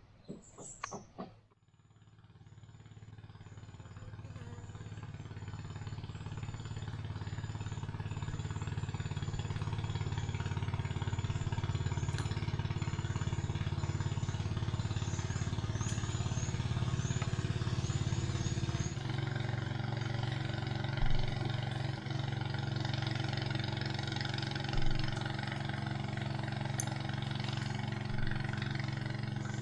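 Small boat's motor running at a steady speed, growing louder over the first several seconds; its note shifts to a new steady pitch about two-thirds of the way through.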